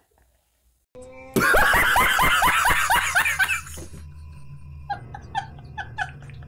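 A man laughing hard. About a second in comes a loud burst of rapid, repeated laughs, which after a couple of seconds thins into a string of short, high-pitched laughs at about three a second.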